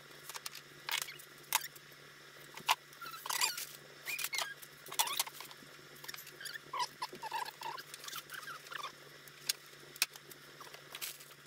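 Aluminium rudder skins and hand riveting tools being handled: scattered sharp clicks and taps, with small squeaks and scrapes of sheet metal rubbing.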